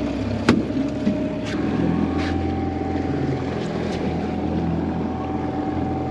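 Boat motor running steadily at trolling speed, with a sharp single knock about half a second in.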